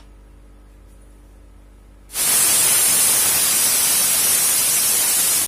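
Stovetop pressure cooker's whistle: steam jets out past the weight valve as a loud, steady hiss that starts about two seconds in and stops abruptly near the end. It is the cooker's first whistle, the sign that it has come up to full pressure.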